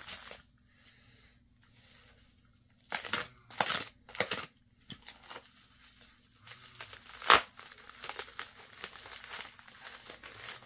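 Plastic postal mailer envelope being torn open and handled, crinkling in short bursts about three and four seconds in, with one sharp rip a little past seven seconds, then steady rustling.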